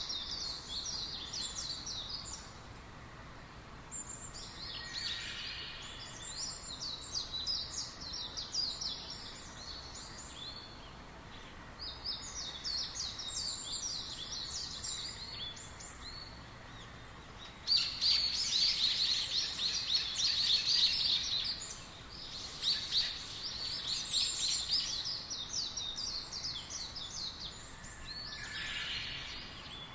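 Songbirds chirping in rapid runs of high notes, in bouts a few seconds long, the loudest about two-thirds of the way through, over faint steady background noise.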